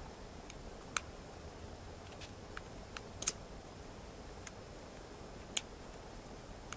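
Small, sharp metallic clicks of a lock pick and tension wrench working the mushroom pins inside a Draper high-security six-pin padlock, irregular, about nine clicks with the loudest a little past three seconds in.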